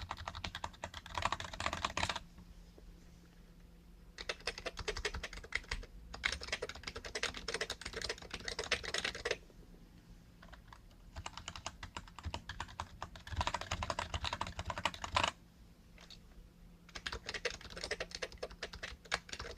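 Rapid typing in four runs separated by pauses of about two seconds, switching between two rubber-dome keyboards: the Emarth EM-601 and a BTC dome-with-slider keyboard.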